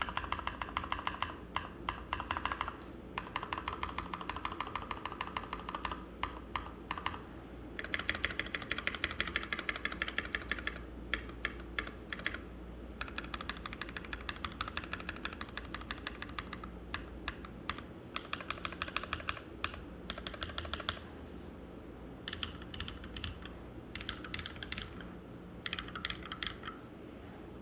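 Typing on a Keychron K4 V2 mechanical keyboard with lubed, filmed Glorious Panda tactile switches in a foam-dampened aluminium case: bursts of rapid keystrokes lasting a few seconds each, separated by short pauses.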